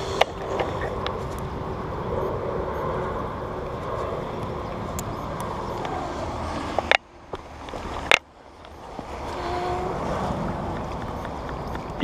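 Wind and clothing rustle on a body-worn camera's microphone as the wearer moves about, with sharp knocks about seven and eight seconds in, each followed by a sudden drop to near quiet.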